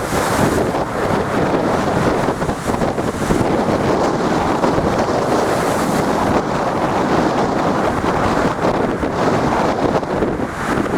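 Strong storm wind blowing across the microphone in a continuous loud rush, over the sound of storm waves surging and breaking.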